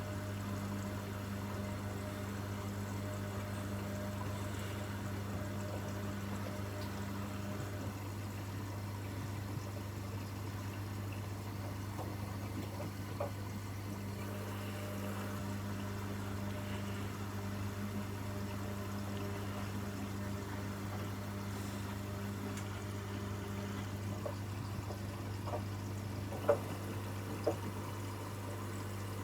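Washing machine running with water flowing inside it over a steady low hum, as from a pump or water valve. There are a few short clicks near the end.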